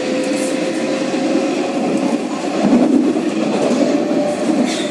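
Luas light-rail tram running on its rails, heard from inside the car: a steady rumble of wheels on track with a faint electric motor whine that rises slowly in pitch as the tram picks up speed.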